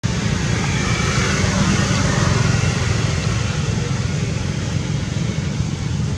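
Steady outdoor background noise: a loud, even low rumble with a fainter hiss above it and no distinct events.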